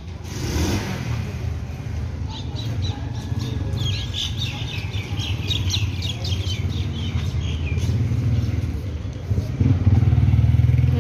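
Motorcycle engine running close by, a low steady rumble that grows louder near the end. A quick run of high chirps comes in the middle.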